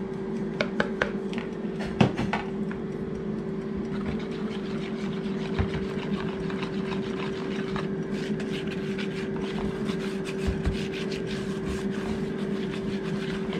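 Wire whisk clicking and scraping rapidly against a plastic mixing bowl, beating flour into eggs, sugar, oil and orange juice for a cake batter. A few separate clicks come first as the liquid is poured from one bowl into the other, and a steady hum runs under everything.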